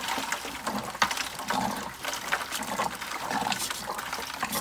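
Water trickling and splashing out of an electric water heater's element port into a plastic bucket, with irregular clicks and scrapes of a tool prodding the sediment inside the tank. The tank is being flushed of built-up sediment.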